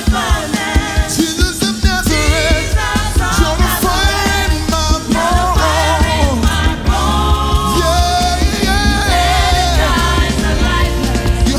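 Live gospel worship song: a lead singer and choir singing with band accompaniment. A heavy bass comes in about two seconds in.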